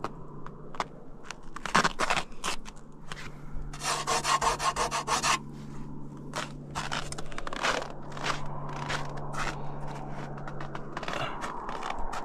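Ice being scraped off a frozen surface: a series of short rasping scrapes, with a quick run of rapid strokes about four seconds in, over a faint low steady hum.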